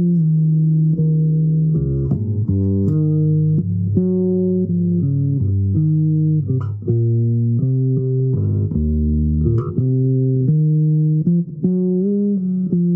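Bass guitar improvising a slow melodic line: sustained plucked notes stepping up and down in pitch, a new note every half second to a second.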